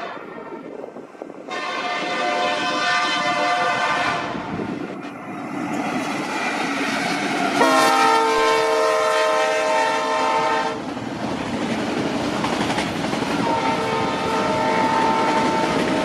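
Leslie air horn on a Kansas City Southern EMD SD70ACe locomotive sounding three blasts, the middle one loudest with a sudden start, over the rumble and wheel clatter of a fast freight train passing close by.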